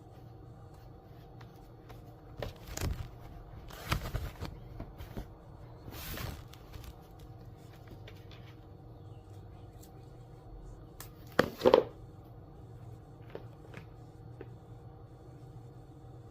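Handling sounds of taping a wood-veneer seam: tape pulled off the roll and pressed across the veneer, with rustling of the thin sheets. Two sharp knocks come close together about eleven seconds in. A faint steady hum runs underneath.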